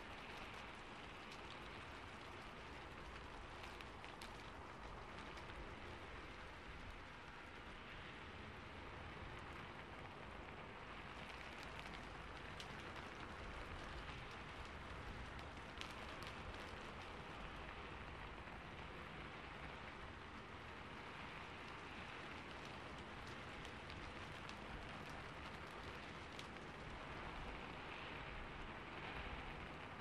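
Rain beating on a roof: a steady wash of rain with scattered sharper drop hits.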